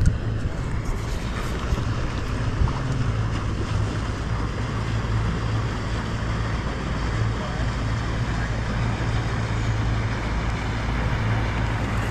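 Motorboat engine running steadily with a constant low hum, with wind on the microphone.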